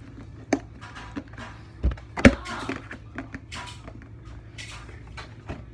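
Plastic slime containers being handled and knocked against a table: scattered clicks and rustles, with a sharp thump a little past two seconds in, over a steady low hum.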